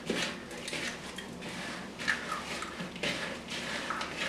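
Hands mixing soft dough in a plastic bowl: faint, irregular squishing and rubbing noises.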